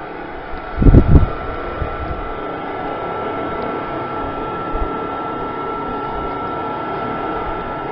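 Trane gas furnace venting through its exhaust flue pipe: a steady whir with a thin, steady high whine. A brief loud low thump about a second in.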